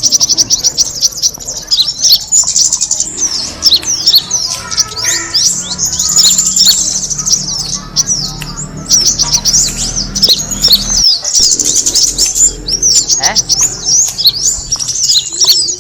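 Small songbird, the kemade, singing a fast, unbroken stream of high chirps, trills and short whistles, the kind of song used as a lure call to attract birds.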